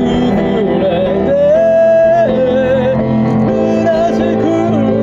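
Solo singer accompanying themselves on guitar: one voice sings a slow melody, holding a long note with vibrato about a second and a half in, over sustained guitar chords.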